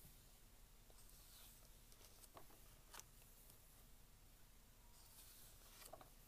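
Faint paper rustling and soft flicks as pages of a thick glossy book are turned by hand, with a sharper flick about three seconds in and a longer rustle near the end as several pages are leafed through.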